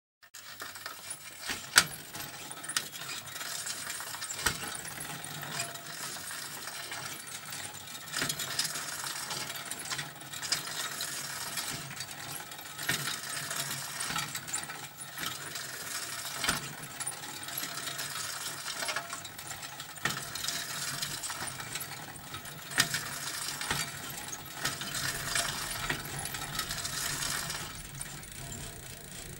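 Bicycle ridden close to the microphone: the chain and drivetrain rattling and clinking steadily with a ticking freewheel, swelling and easing in waves, with a few sharp clicks along the way.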